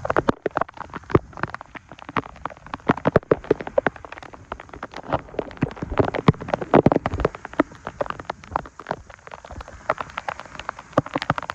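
Rain falling in heavy drops that tap close to the microphone as a dense, irregular patter.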